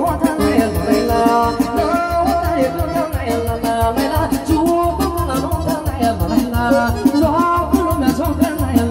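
Woman singing into a microphone over amplified party music with a steady fast beat, heard through a PA speaker.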